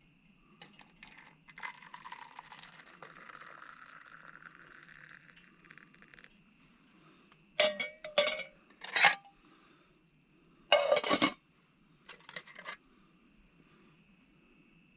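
Cooking utensils and cookware knocking and clinking in several short clusters, with a faint hiss in the first few seconds.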